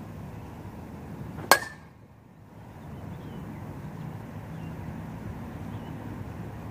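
A metal bat striking a ball once, about a second and a half in: a single sharp ping with a brief ring.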